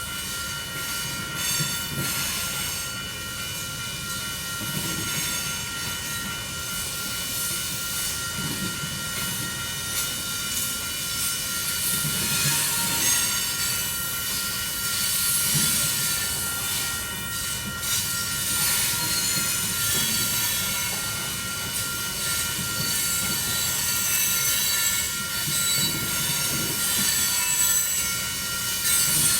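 Union Pacific coal train's cars rolling past with a steady wheel-on-rail rush and several high, sustained squealing tones from the wheels.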